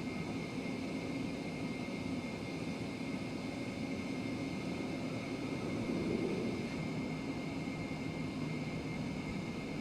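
Jet airliner's engines running steadily: an even rushing drone with a constant high whine, swelling slightly about six seconds in.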